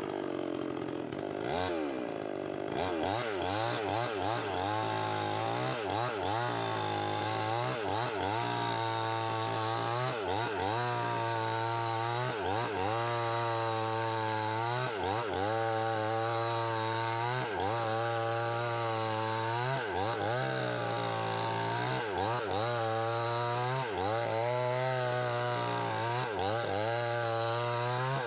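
Two-stroke gasoline chainsaw running hard while cutting through wood. It starts abruptly, and its engine note dips and rises again every second or two as the chain is loaded in the cut.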